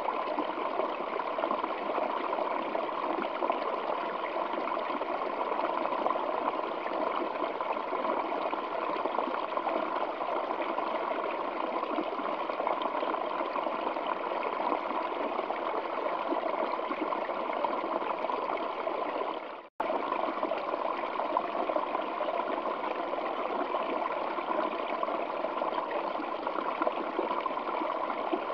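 Waterfall flowing over rocks: a steady, even rush of falling water. It drops out for an instant about twenty seconds in, then resumes as before.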